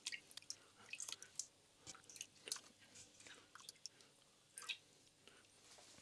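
Faint, irregular wet splashes and squelches as raw cured pork knuckle pieces are lowered by hand into a pot of water: a series of short sounds scattered throughout.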